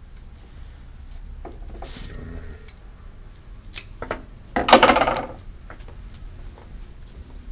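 A few light clicks and knocks of handling, then a short, loud cut through a fresh flower stem a little under five seconds in, lasting under a second.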